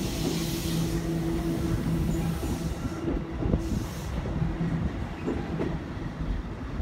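JR East E233 series electric commuter train running out along the platform: a steady low hum with a second tone above it, cutting in and out, over the rumble of wheels on rail, easing slightly as it draws away.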